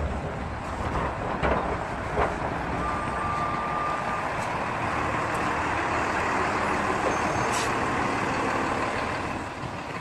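Snowplow truck passing close by, its engine and tyre noise building up and then holding steady. A short steady whine sounds about three seconds in, and a few knocks come early.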